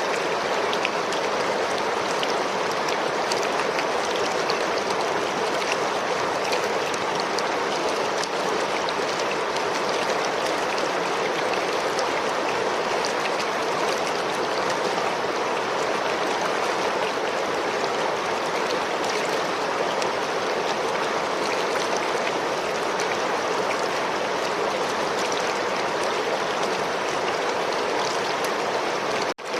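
River water flowing steadily, an even rushing babble, with a brief dropout in the sound just before the end.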